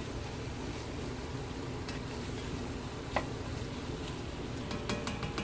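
Chopped onions, bell pepper and garlic sizzling steadily in a pot on medium heat, with a few light clicks of a stirring utensil against the pot, a quick cluster of them near the end.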